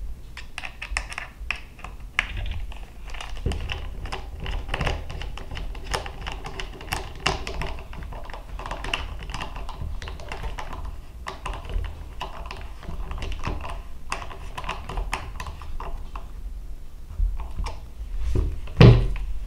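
Handling of a Ruger 10/22 rifle's receiver in its stock: many light, irregular clicks and taps of metal and plastic as the takedown screw is driven in with a screwdriver. There is one louder knock near the end.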